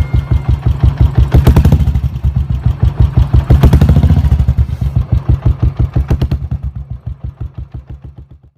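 Motorcycle engine idling with a loud, lumpy exhaust beat of about eight pulses a second, blipped twice, about a second and a half in and again near four seconds. The sound fades out over the last two seconds.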